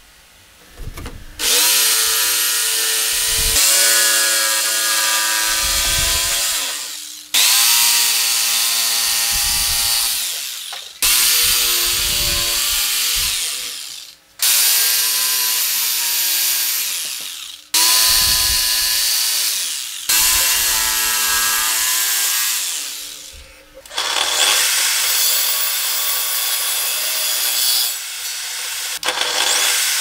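INGCO corded jigsaw cutting out a shape in a solid wood board, in a series of runs a few seconds long, each starting abruptly and dying away. Over the last several seconds, a table saw cutting the wood takes over with a rougher, steadier sound.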